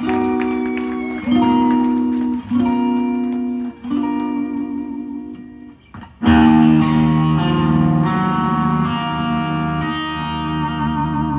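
Electric guitar playing slow blues: four sustained chords struck in turn, then about six seconds in a louder, fuller chord that rings on with a wavering vibrato.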